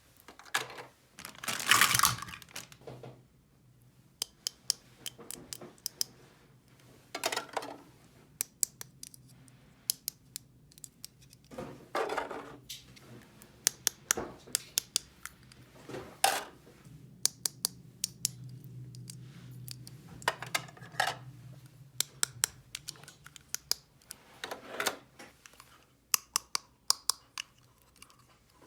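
Small plastic toy pieces being handled: many light clicks and taps, with a few short rustling scrapes in between.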